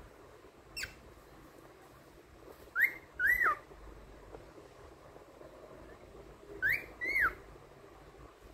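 Young pearl cockatiel whistling a mimicked two-note phrase, a rising note then an arched falling one, twice about four seconds apart, with a short single whistle note about a second in.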